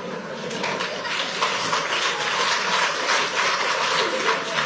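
Audience applauding, a steady clatter of many hands clapping, mixed with crowd laughter.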